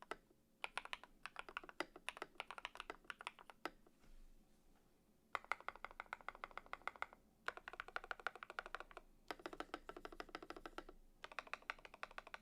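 Typing on a Yunzii YZ75 mechanical keyboard with lubed KTT Grapefruit linear switches and foam and tape mods. Bursts of keystrokes, a pause about four seconds in, then several fast, dense runs of typing.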